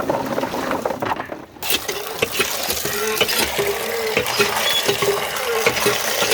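Water running and splashing into a vessel, starting about one and a half seconds in, with small knocks and clatter throughout.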